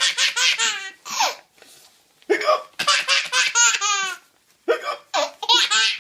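Baby giggling and belly-laughing in three runs of high, quick laughs, with hiccups heard between the runs that set the laughter off.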